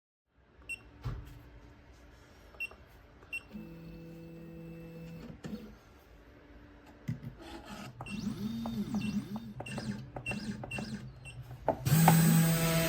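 Genmitsu 3018-PROVer V2 desktop CNC mill with its stepper motors whining in short rising and falling glides as the axes jog, among a few clicks. About a second before the end the spindle motor starts and runs with a loud, steady hum.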